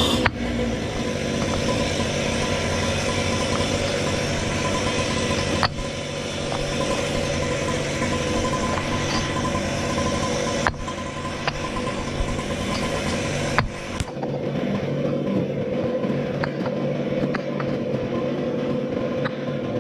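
An engine running steadily, with a few sudden breaks.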